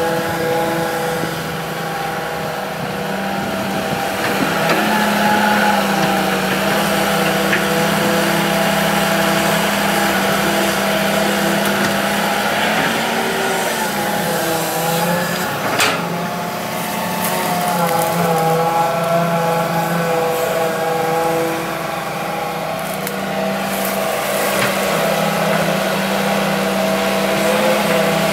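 Hitachi EX200-3 hydraulic excavator working soil: the diesel engine runs under hydraulic load, its pitch dipping and rising several times as the boom and bucket move. A single sharp clank comes about halfway through.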